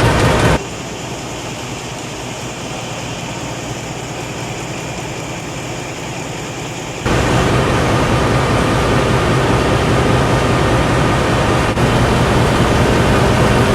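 Corrugated carton flexo printer slotter die cutter running, a steady mechanical clatter over a low hum. It drops abruptly to a quieter level about half a second in and comes back at full level about seven seconds in.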